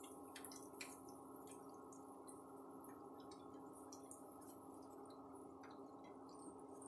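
Malpuas frying in hot ghee: a faint steady sizzle with many small scattered pops and crackles.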